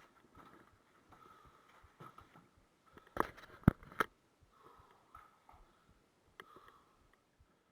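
Faint shuffling and handling noises, with three sharp knocks close together about three to four seconds in and a lighter click a little later.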